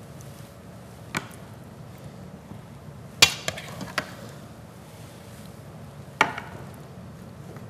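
Five separate sharp clinks and knocks of kitchen utensils against dishes as food is served, the loudest about three seconds in.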